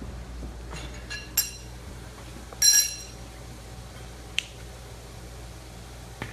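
A few light metallic clinks, each ringing briefly, the loudest a little under three seconds in, over a steady low hum.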